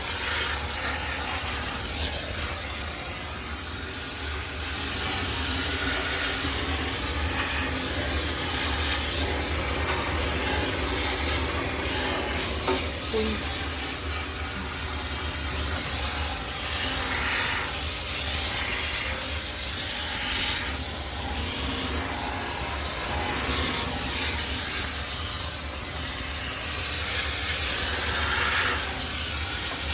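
High-pressure steam cleaner jetting steam onto a washing machine to sterilise it: a steady hiss that swells and eases as the jet moves, over a low hum.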